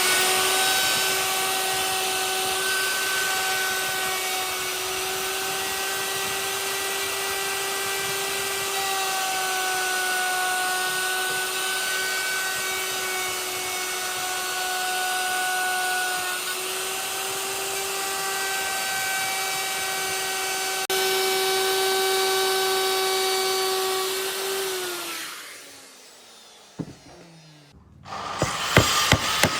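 Handheld electric power tool running at a steady high speed with a constant whine and hiss. About 25 seconds in it is switched off and winds down, its pitch falling away, followed by a few sharp knocks near the end.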